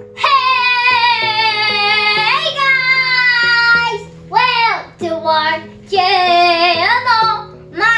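A child singing long, high held notes with a wavering pitch over a backing of steady sustained chords, moving into shorter sung phrases about halfway through.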